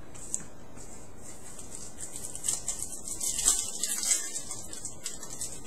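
Crackly rustling and crinkling of trading-card pack wrappers and cards being handled, starting about two seconds in and growing busier toward the end.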